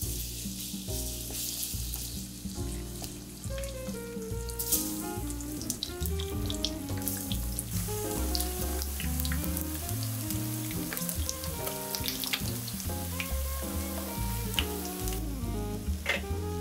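Starch-coated chicken skin sizzling as it shallow-fries in oil in a frying pan, over background music. The sizzle drops away near the end.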